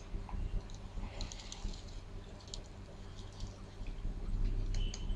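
Faint scattered clicks and light taps over a steady low electrical hum.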